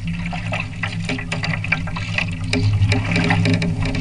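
Water splashing and rushing against the hull of a small RC trimaran sailing through chop, heard from on board, with an irregular patter of small splashes over a steady low hum. It grows louder about two and a half seconds in.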